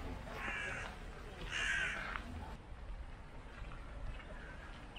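A crow cawing: two calls in the first two seconds, the second longer and louder, then only faint outdoor background.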